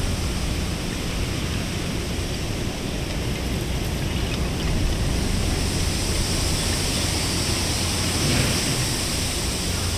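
Wind gusting through a rack of wooden ema votive plaques, the plaques rattling and clattering lightly against each other over a steady rush and low rumble of wind. The gust swells in the second half.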